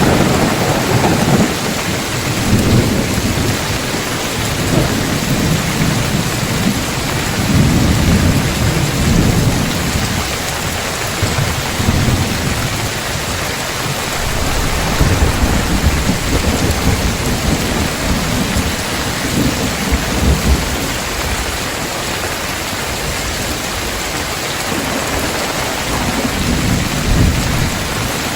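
Heavy rain falling steadily on a tiled roof, with low rolls of thunder rumbling again and again.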